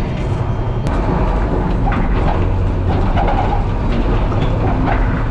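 Unimog truck driving off-road: a loud, steady low engine drone with a few scattered knocks.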